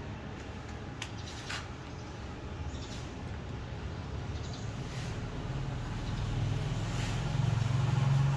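A low engine hum growing steadily louder over the second half, with a few faint clicks.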